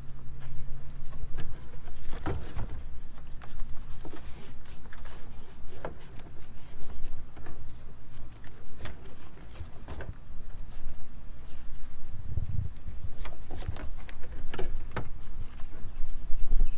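Irregular clicks and knocks of hands working on a plastic kayak's cockpit outfitting, with a dense cluster of knocks a little past two-thirds of the way through and a low hum in the first half.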